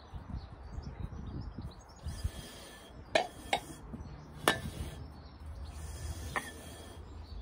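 Small terracotta flower pots knocking and clinking against each other and the board as they are shuffled, a few short ringing clinks from about three seconds in, over a low steady rumble.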